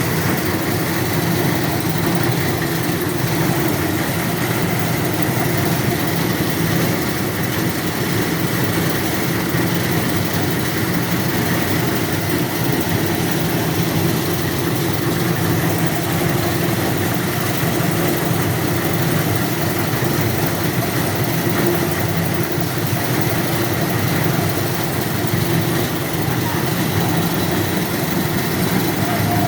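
Engines of a concrete mixer and a foundation drilling machine running together in a steady, loud drone.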